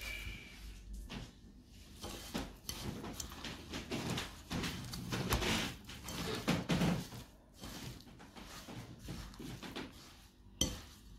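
Ground chicken, rusk crumbs and spices being mixed by hand in a glass bowl: irregular soft squishing and rustling of the wet mince, with scattered knocks against the bowl and one sharper knock near the end.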